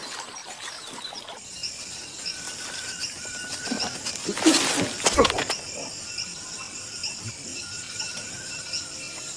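Night-time nature ambience of insects chirping: many short, repeated chirps at several high pitches. A brief, louder burst of noise comes about halfway through.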